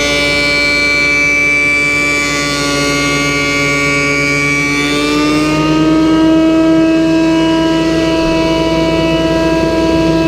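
Benchtop jointer's motor running with a steady high whine as a wenge board is fed across the cutterhead. Its pitch steps up slightly about five to six seconds in.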